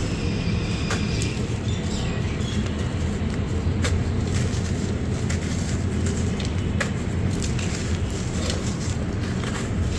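Hands crushing and rubbing dry sand-cement crumbles in a clay pot: gritty crunching and a fine trickle of falling grains, with a few sharp cracks as lumps break, over a steady low rumble.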